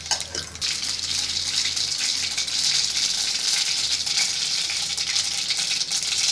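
Mustard seeds frying in hot oil in a nonstick kadai: a steady sizzling hiss with fine crackling as the seeds splutter during tempering.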